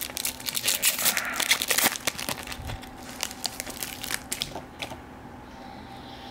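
Foil wrapper of a basketball trading-card pack crinkling as it is torn open and peeled away, dense for about two seconds, then a few scattered crinkles and clicks.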